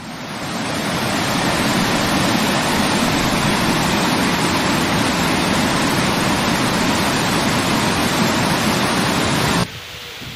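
Waterfall: the steady rush of falling water, loud and unbroken. It fades in at the start and cuts off abruptly near the end.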